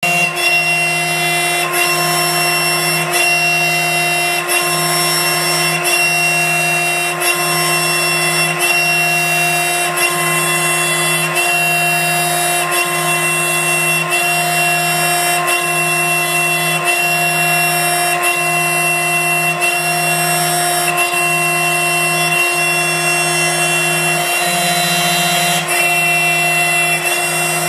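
CNC router spindle running with a steady high whine while its cutter mills a concrete curb mould pattern. The sound dips briefly about every second and a half as the cut repeats.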